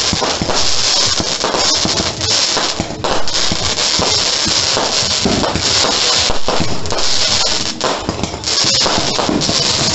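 Consumer fireworks crackling and popping densely, with a steady hiss of sparks and frequent sharp bangs.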